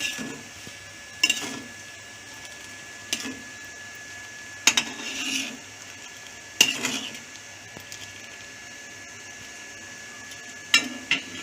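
A spoon stirring a pan of simmering chutney, knocking and clinking against the pan about seven times at uneven gaps of one to two seconds, over a faint steady high whine.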